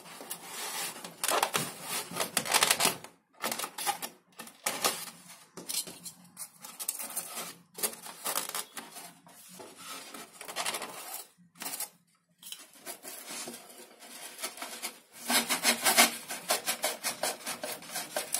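Hands working XPS foam model-plane parts: the foam rubs and scrapes, with rapid runs of small clicks and taps. It is loudest about a second in and again around fifteen seconds in, and breaks off briefly twice.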